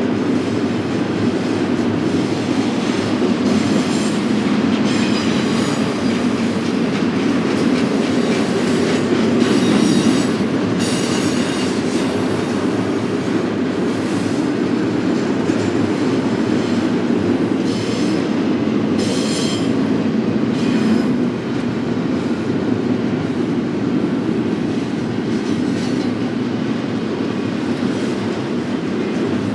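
BNSF freight train rolling steadily past with a continuous rumble of steel wheels on rail. Short high-pitched wheel squeals come and go a few times.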